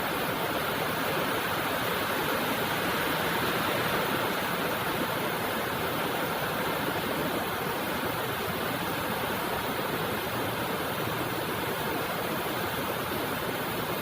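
Steady rain falling: an even hiss that does not change, with no single drops or thunder standing out.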